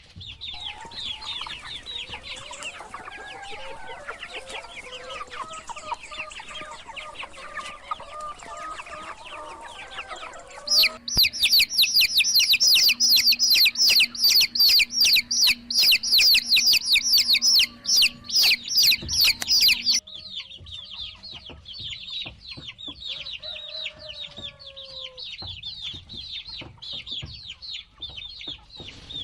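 A flock of baby chicks peeping continuously, many rapid high-pitched chirps overlapping. The recording changes abruptly twice, about 11 and 20 seconds in; the middle stretch is the loudest and densest, and lower, longer calls run beneath the peeping in the first part.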